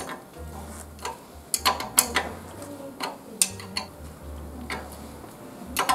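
Metal clicks and clinks of a wrench on the handlebar stem bolt of a child's bicycle as the bolt is tightened, coming irregularly with a cluster of clicks about two seconds in and another near the end.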